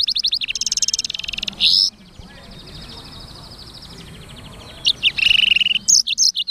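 Black-throated canary (blackthroat) singing: a loud, fast trill of repeated chirps, a softer rattling trill, then another loud burst of song and quick sliding notes near the end.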